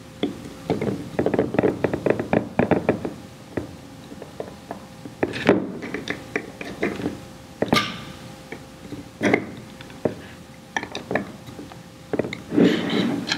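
Screwdriver and small screws working on the metal top cover plate of a KNF diaphragm pump head: a quick run of small metallic clicks and taps in the first few seconds, then scattered single knocks as tools and parts are handled.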